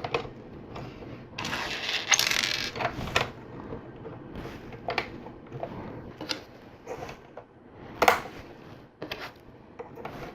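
LEGO bricks clicking and rattling as they are handled and pressed together, a series of small sharp plastic clicks. There is a longer stretch of rattling from about one and a half to three seconds in, and the loudest click comes about eight seconds in.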